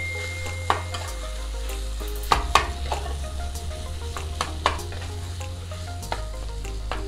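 Chicken pieces frying in spiced onion masala in a non-stick kadhai, sizzling while a spatula stirs and scrapes them, with a few sharp knocks of the spatula against the pan, two close together about two and a half seconds in.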